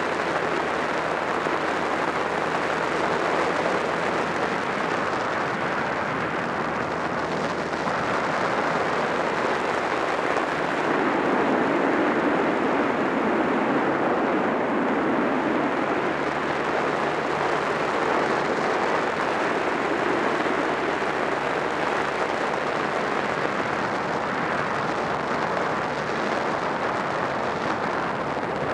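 Wind rushing over the camera microphone on a moving Honda Rebel 250 motorcycle, with its air-cooled parallel-twin engine running steadily at cruising speed underneath. The rush grows a little louder for a few seconds about eleven seconds in.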